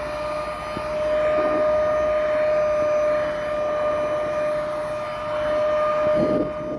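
Cordless stick vacuum cleaner running, a steady motor whine over a rushing hiss of air.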